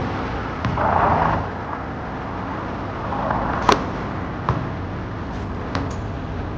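A basketball bouncing on a hard outdoor court, a few separate thuds, with a sharper hit about three and a half seconds in as a shot reaches the hoop, over a steady traffic rumble.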